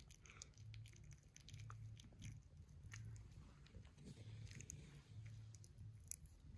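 Faint small clicks and smacks of a six-week-old Maltese–Shih Tzu (malshi) puppy mouthing and nibbling a person's hand and fingers, over a low hum that swells and fades about once a second.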